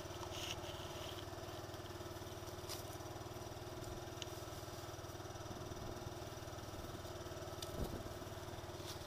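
SYM scooter engine idling steadily, with a few faint clicks and a soft thump about eight seconds in as gloves are pulled on.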